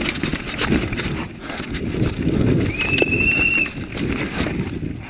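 Downhill mountain bike clattering and rattling over a rough dirt trail, a dense run of knocks and rumble picked up by a camera mounted on the rider. About three seconds in, a high whistling tone sounds for just under a second.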